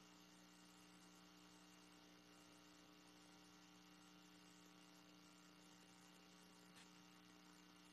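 Near silence with a faint, steady electrical hum, and one tiny click about seven seconds in.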